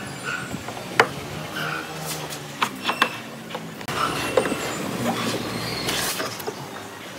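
Pine boards knocking and clacking as they are butted together in pipe clamps for a glue-up, with a hand then rubbing over the wood surface. A low rumble runs under the middle few seconds.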